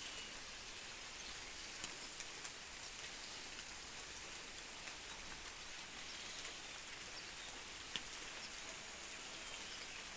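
Steady rain falling, with a few sharper drops ticking now and then.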